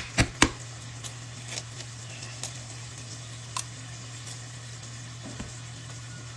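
An egg tapped twice against the rim of a bowl to crack it: two sharp knocks a quarter second apart right at the start, then a few faint ticks.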